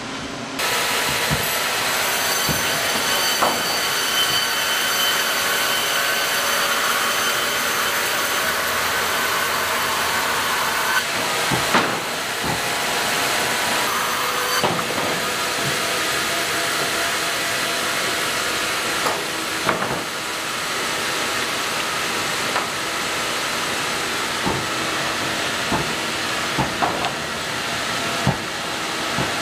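Sawmill machinery running steadily: a loud mechanical din with a whine partway through, and boards knocking on the roller conveyors now and then.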